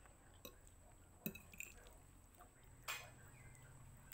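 A metal fork clinking against a ceramic plate while twirling spaghetti: a few light clinks, two of them sharper, over a very quiet background.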